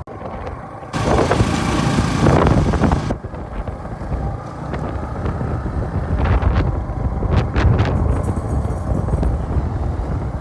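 Vehicle ride noise with wind buffeting the microphone, heard riding on a motorcycle taxi: a steady low rumble, with a loud blast of wind about a second in that lasts about two seconds, and a few sharp clicks later on.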